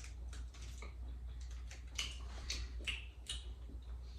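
Crunchy snack being chewed close to the microphone: scattered, quiet, crisp crackles at irregular intervals.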